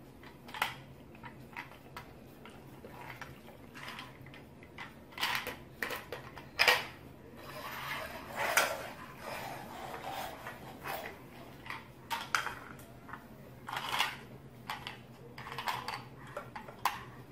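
Hard plastic toys knocking and clattering on a wooden floor as a baby handles them and pushes a toy car, a scattering of irregular separate clicks and knocks.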